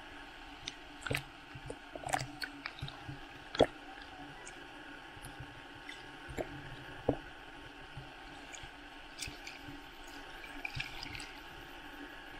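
Seawater sloshing and dripping against a waterproof camera housing held at the ocean surface, heard muffled through the case: scattered small pops, drips and splashes over a steady hiss. The sharpest pop comes about three and a half seconds in.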